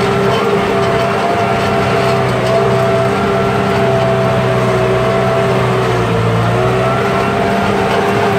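Tractor engine running at a steady speed under load, pulling a disc harrow through dry soil, with a constant drone and a steady whine over it.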